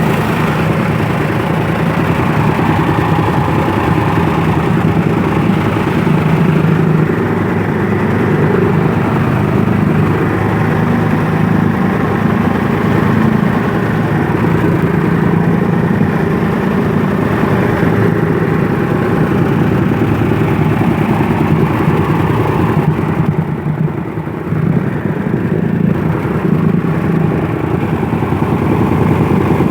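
The engine of a sago-processing machine running steadily with an even, rapid beat, easing off briefly about two-thirds of the way through.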